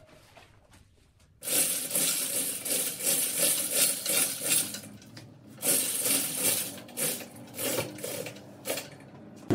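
Busy metallic clinking and scraping that starts suddenly about a second and a half in and goes on in quick uneven strokes, with a short pause around the middle.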